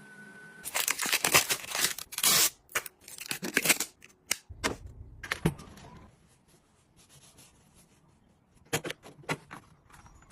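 Packaging being torn open and crinkled in a run of quick, loud rustling rips over the first four seconds, then a few scattered clicks and short handling sounds.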